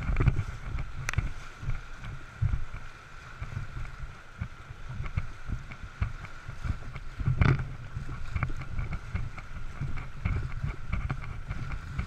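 Whitewater rapids rushing around a canoe as it runs through them, with wind buffeting the microphone in gusty low rumbles.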